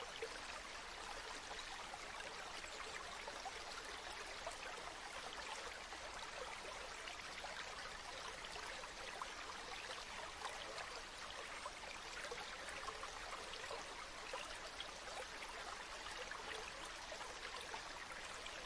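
Faint, steady rushing noise like running water, with a fine crackle and no change in level.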